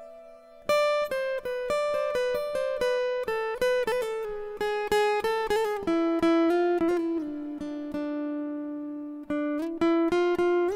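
Background film music: a plucked-string melody, picked one note at a time, with one note held for a couple of seconds before the picking resumes.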